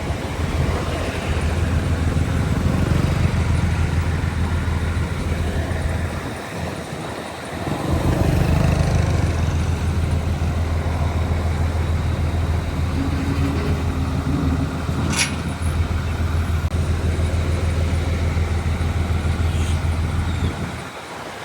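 Heavy diesel earthmoving machinery running with a steady deep engine drone, which drops away briefly about a third of the way in; a single sharp click about two-thirds of the way through.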